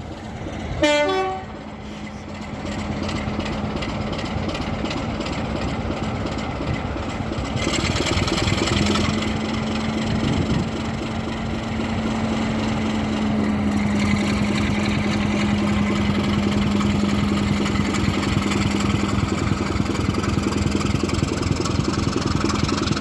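Railway train running, a continuous noisy rumble with a steady low drone that grows stronger partway through. A short pitched toot sounds about a second in.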